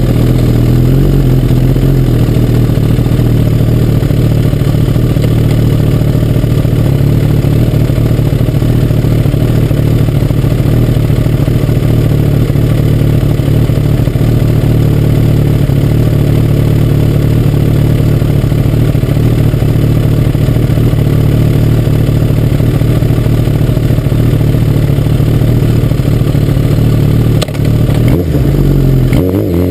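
Kawasaki ZX-10 motorcycle's inline-four engine idling steadily while the bike is stopped, with a short rise in revs right at the end as it pulls away.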